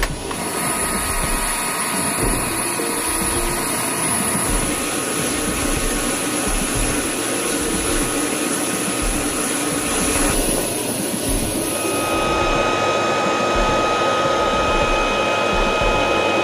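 Military helicopter's turbine engines and rotors running with a steady rush and a high whine. About three quarters of the way through, the high whine drops out and a lower, steady whine takes over.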